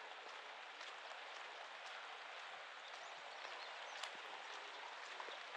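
Steady rain falling, an even hiss with many scattered drop ticks; one sharper drop tick about four seconds in.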